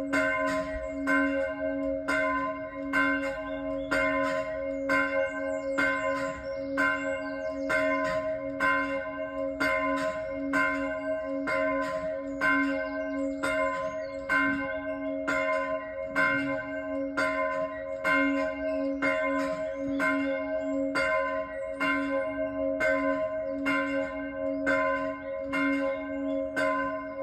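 Church bells of Santon Downham ringing in a steady, unbroken sequence of strikes, about two a second, heard from outside the church.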